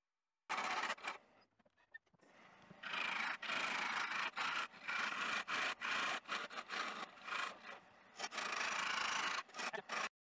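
A turning tool cutting a spinning wooden spindle on a wood lathe, a rough scraping of the cut as shavings peel off. It starts about half a second in, goes faint for a couple of seconds, then runs strongly, broken by many brief gaps as the tool moves along the blank, and stops just before the end.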